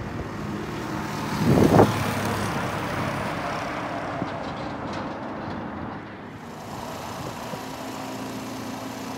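A dirt bike's engine running, loudest as it passes close by about one and a half seconds in, with road noise. In the last few seconds there is a steady engine hum with a wind-like hiss.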